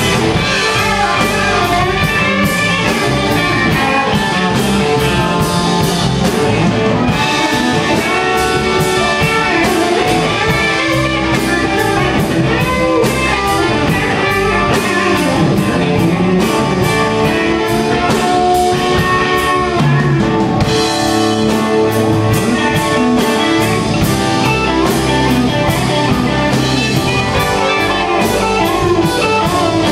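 Live rock band playing with electric guitar and drum kit.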